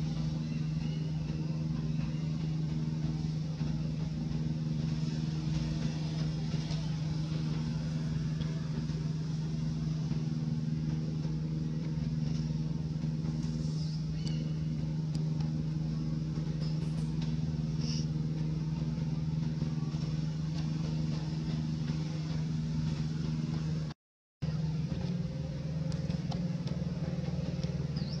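A steady low motor hum that holds one pitch throughout, broken by a sudden half-second dropout near the end.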